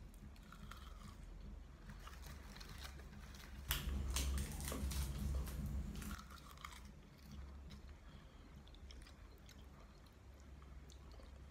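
A crisp sheet of roasted seasoned seaweed (gim) bitten and chewed close to the microphone. Dense, loud crackling runs from about four to nearly seven seconds in, then gives way to quieter chewing with scattered small clicks.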